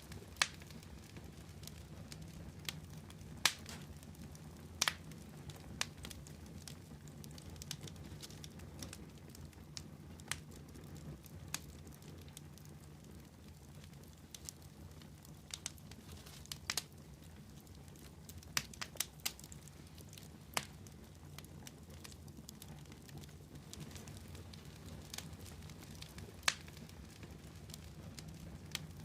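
Wood logs crackling in a campfire: irregular sharp pops, a few to several seconds apart, over a steady low rumble.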